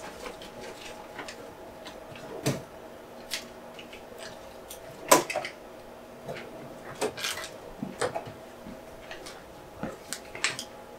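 Scattered handling sounds, with clicks, taps and rustles as gel is wiped off with a paper towel and things are set down. One sharper click comes about five seconds in, over a faint steady hum.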